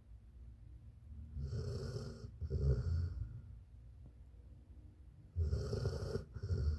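Dog snoring in its sleep: two snores about four seconds apart, each made of two quick breaths in a row.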